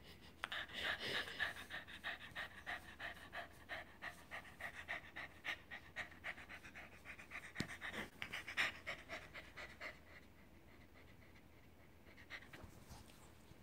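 Brown cockapoo panting quickly and rhythmically, about five breaths a second, stopping about ten seconds in.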